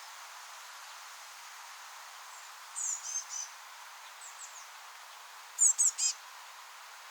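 Blue tit fledglings chirping: a quick run of three high, thin calls about three seconds in, a couple of faint ones after, then three louder, sharper calls near the end, over a steady hiss.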